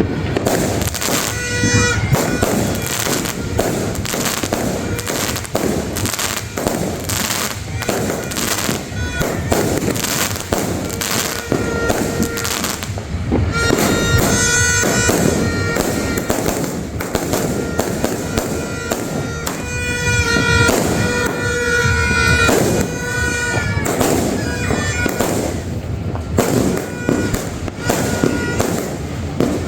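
GLK "Lightning Thunder" 100-shot fireworks cake firing a rapid, continuous string of loud bangs and crackles. At times steady high tones sound over the bangs.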